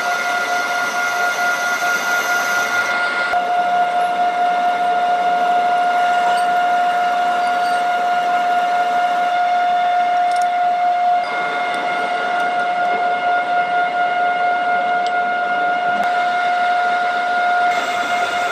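Steady high-pitched machine whine, one held tone with a fainter overtone above it over a bed of mechanical noise. Its character changes abruptly a few times.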